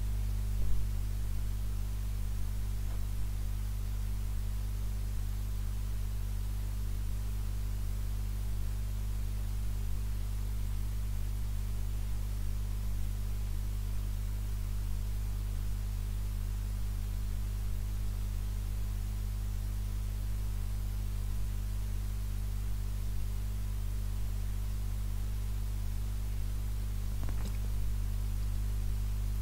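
Steady low electrical hum with a stack of evenly spaced overtones over a faint hiss: the recording's noise floor, unchanging throughout.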